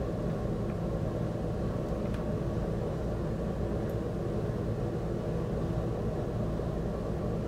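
Steady low background rumble of room noise that keeps an even level, with no speech or distinct events.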